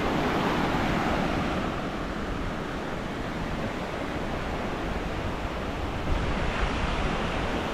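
Sea surf washing onto a beach, with wind rushing over the microphone: a steady wash of noise.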